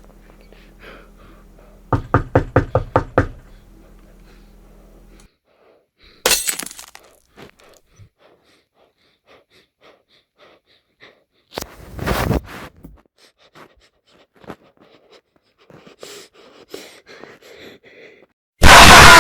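A low hum under a quick run of about eight sharp knocks, then a sudden harsh burst about six seconds in, another heavy bang around twelve seconds, scattered clicks, and a very loud, distorted blast of noise starting near the end.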